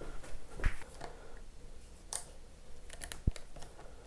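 A few small clicks and taps of a screwdriver being handled and fitted into a bass guitar's bridge saddle screw, ready to move the saddle back because the string plays slightly sharp. A single dull knock about three seconds in.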